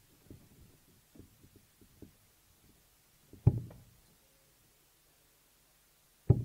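Steel-tipped darts thudding into a bristle dartboard, two hits about three seconds apart, one about halfway through and one at the very end. Faint small clicks and knocks come in the first few seconds.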